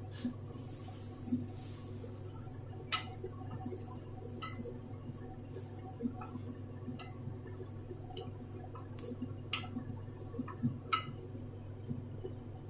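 A spatula stirring boiled chana dal in a wet spice mix in a stainless steel kadai, with scattered clinks and scrapes against the pan, a few sharper clinks about 3 s in and between 9 and 11 s. A steady low hum runs underneath.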